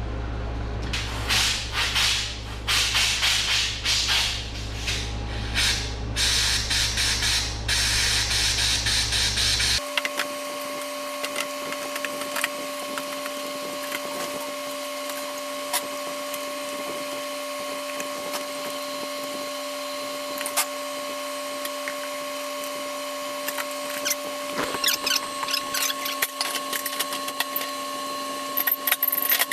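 Hand work on a riding mower's fuel system: a run of short, loud, noisy bursts over several seconds, then, after an abrupt change, a steady hum with scattered clicks and knocks from parts being handled, and a few more bursts near the end.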